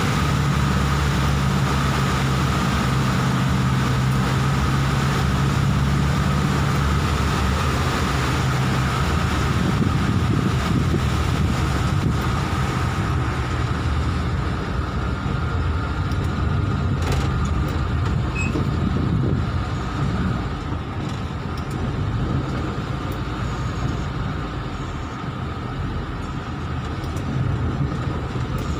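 Car interior noise while driving through floodwater in heavy rain: a steady engine hum under a broad hiss of rain and water. The hiss eases about halfway through.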